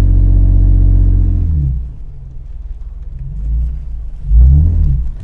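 Four-wheel-drive vehicle's engine pulling hard and steady through soft dune sand. About a second and a half in, the throttle comes off and the engine drops low. It then gives a few short revs, the loudest near the end.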